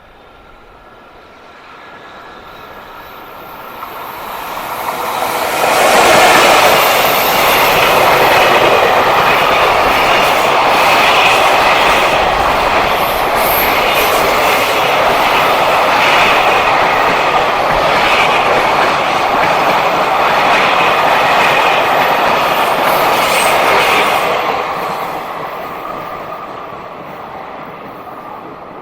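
JR Freight train hauled by an electric locomotive passing at speed. It builds from about four seconds in, and its wheels run loud on the rails for some eighteen seconds with repeated clicks over the rail joints, then it fades away near the end.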